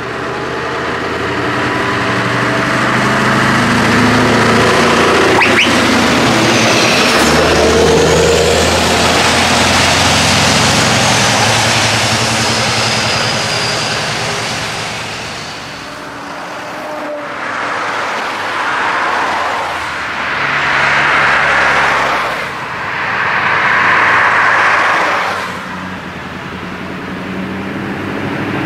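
Scania R620's V8 diesel engine with straight pipes, a heavy-haulage truck driving past. The loud engine note builds, peaks with a pitch drop as the truck passes about seven seconds in, then fades somewhat. Three further swells of engine noise follow in the second half.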